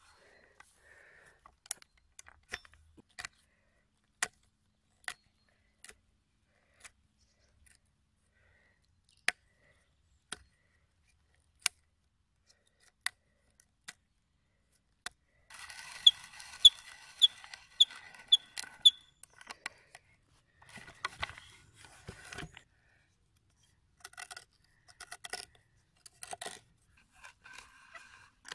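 Hand brace turning an auger bit into a log, giving sharp metallic clicks roughly once a second. About halfway through, a knife scrapes and carves the wood in quick strokes for a few seconds, with more scraping in patches near the end.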